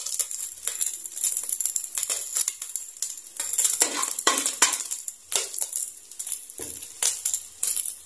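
A metal spatula scrapes a crumbly fried mixture off a plate into a large aluminium wok and stirs it, in an uneven run of scrapes and clinks over the steady sizzle of hot oil.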